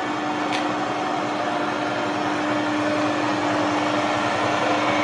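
Manual lathe running in reverse at its lowest spindle speed to back a spiral tap out of a blind hole, the tap held in a drill chuck in the tailstock. The motor and gearing give a steady hum with one held tone, and there is a light click about half a second in.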